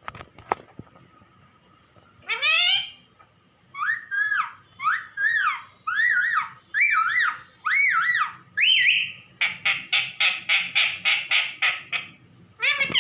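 Pet parrot calling repeatedly: a rising call, then a run of about six arching, drawn-out calls, then a quick series of short chirps at about four a second.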